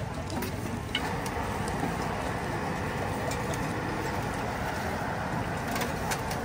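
Steady rushing background noise of an open-air night market, a little louder from about a second in, with a few faint taps.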